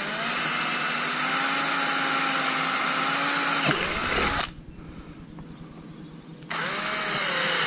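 SP Tools power drill with a 1/4-inch bit drilling a hole, the motor spinning up and running steadily under load, then stopping. It starts again after a pause of about two seconds.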